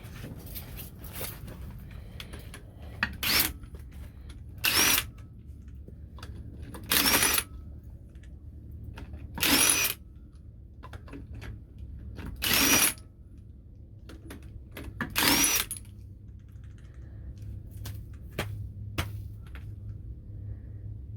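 Ryobi cordless impact wrench run in six short bursts, each opening with a rising whine, spinning the lug nuts off an RV wheel, lug nuts that have never been off before.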